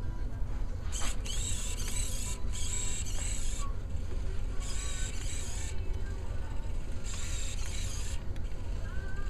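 Hobby servo motors of a small robot whirring in about four short bursts of a second or so, with pauses between. These are the robot's modified continuous-rotation wheel servos driving it across the whiteboard in short moves.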